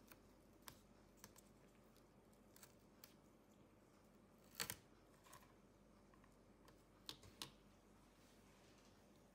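Near silence with scattered faint clicks and taps of a laptop cooling fan and its plastic parts being handled and lifted out of the chassis. The loudest is a quick double click about halfway through.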